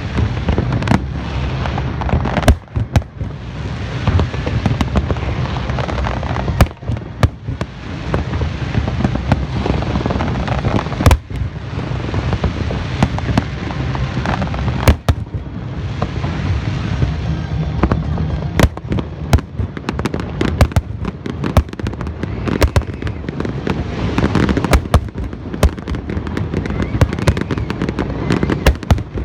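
Aerial fireworks display going off continuously: a dense barrage of booms and crackling, with many sharp, loud bangs scattered throughout.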